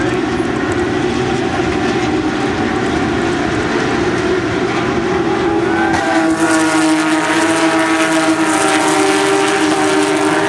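Steady drone of running vehicle engines, with a stack of steady tones over a rushing noise. The sound changes abruptly about six seconds in, when the low rumble drops away and a new set of steady tones takes over.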